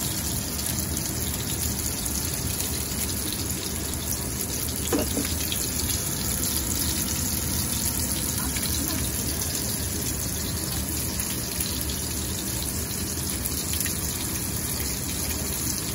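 Beef hamburger patties sizzling steadily in hot oil in a frying pan.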